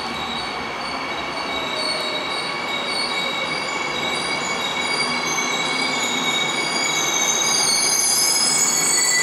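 Seoul Metro Line 3 electric train (set 3002, ten cars) pulling slowly into the platform as it slows to stop. A rumble runs under several steady high-pitched tones, and the sound grows louder as the train nears, with higher tones joining near the end.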